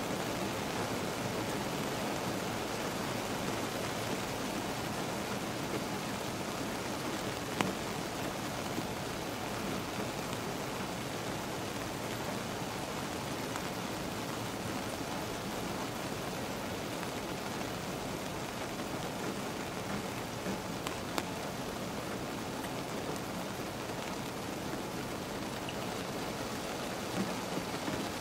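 Steady rain falling on a car, heard from inside the cabin: an even hiss with a few sharper ticks about eight, twenty-one and twenty-seven seconds in.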